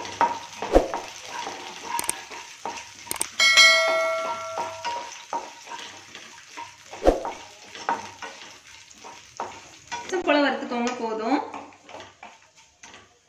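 Wooden spatula stirring and scraping peanuts, roasted gram and curry leaves frying in a little oil in a nonstick kadai: light sizzling with many small knocks of nuts and spatula against the pan. A ringing chime sounds about three and a half seconds in, and a short wavering pitched sound comes near the end.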